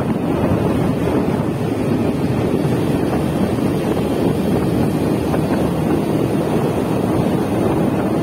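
Steady wind rush buffeting the microphone of a moving motorbike, with a dense low rumble of road and vehicle noise underneath.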